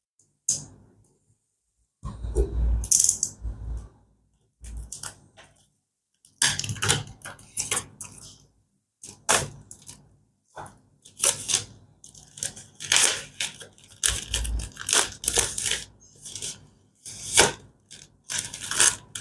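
Clear plastic shrink-wrap being slit and torn off a cardboard phone box, crinkling and crackling in irregular bursts with short pauses.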